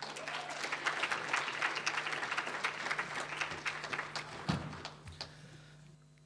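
Audience applauding, many hands clapping together, thinning out and dying away near the end.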